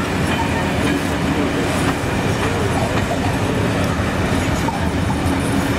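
Heritage passenger carriages of a steam-hauled train rolling past, a steady rumble of wheels on rail.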